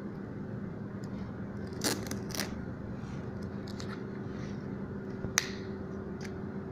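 Small scrapes and clicks of a tool and fingers working black ESD sheet tape off a tablet's inner frame: two brief rustling scrapes about two seconds in and one sharp click a little past five seconds. A steady low hum runs underneath.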